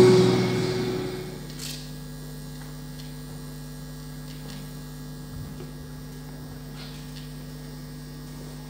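Music fades out in the first second or so, leaving a steady electrical mains hum, with a few faint ticks.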